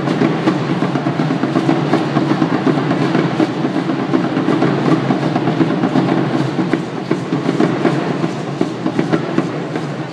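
Drumming in a fast, steady rhythm, with dense clattering beats that carry on without a break.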